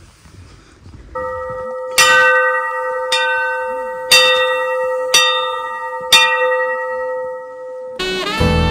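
Metal temple bell struck five times, about once a second, each strike ringing on over a steady bell tone that begins about a second in. The ringing cuts off suddenly near the end as music starts.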